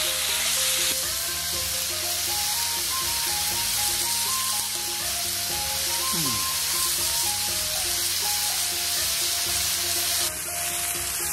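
Beef steaks and pork belly sizzling on a hot flat iron teppanyaki griddle: a steady hiss that drops off abruptly near the end. Background music with a simple stepping melody plays over it.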